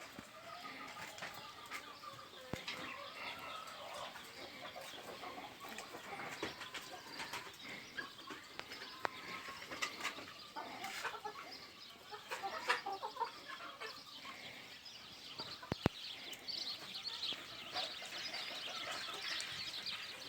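Chickens clucking and other birds chirping in an aviary and chicken coop, a steady mix of short calls, with a few sharp clicks.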